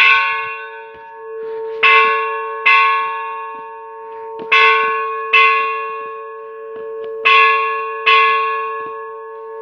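Church bell rung in a repique, struck in pairs of strokes a little under a second apart, a pair about every two and a half seconds. Each stroke rings on and fades, so the bell's tone carries between the strikes.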